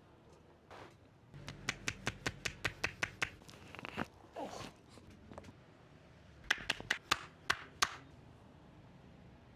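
Hands striking the body in quick massage taps, two runs of sharp slaps at about six a second, with a short sound falling in pitch between them.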